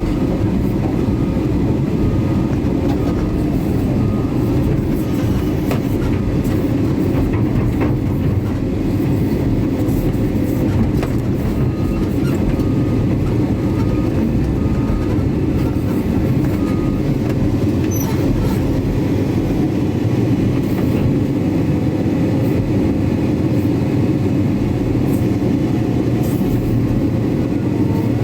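Large hydraulic excavator's diesel engine running steadily under load, with a dense, continuous low rumble.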